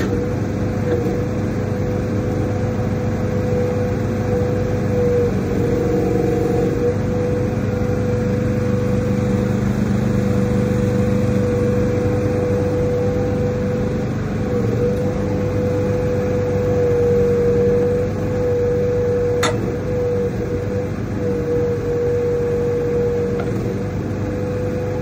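A 2022 Agrotk YM12 mini excavator running steadily, with a steady whining tone, as its boom and bucket are worked. One sharp click comes about 19 seconds in.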